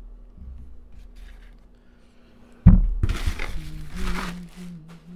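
Unboxing packaging being handled: a loud thump about two and a half seconds in, as of a box set down, followed by a couple of seconds of rustling and crinkling.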